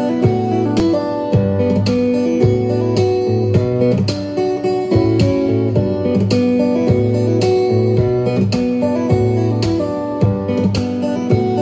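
Instrumental guitar passage of a ballad, acoustic guitar plucked and strummed in a steady rhythm over a bass line, with no singing. It is played back through a wireless speaker for a sound test.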